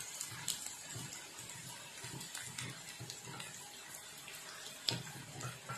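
Battered cauliflower florets sizzling faintly in shallow hot oil in a frying pan, with light clicks and scrapes as they are lifted out with a spatula onto a plate; a sharper knock about five seconds in.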